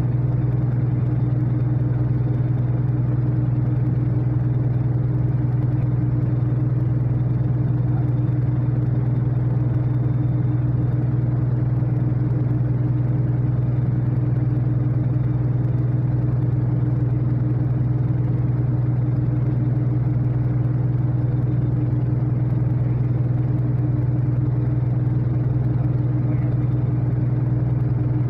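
Steady low engine drone of a ship, a constant deep hum with a fainter higher tone above it, unchanging throughout.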